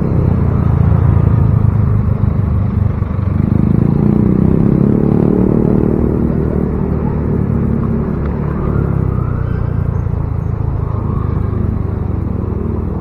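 Motorcycle engine running with wind and road noise while riding. The engine picks up about three seconds in and eases off toward the end.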